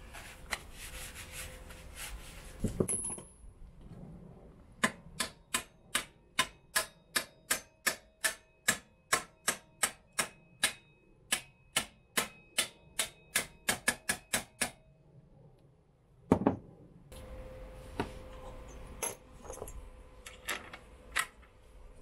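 A mallet tapping the rear axle end of a Yamaha TDM 850 motorcycle: about two dozen sharp, evenly spaced taps, two to three a second, quickening toward the end. A single louder knock follows.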